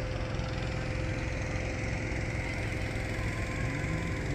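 Small engine running steadily at a constant speed, with an even hum.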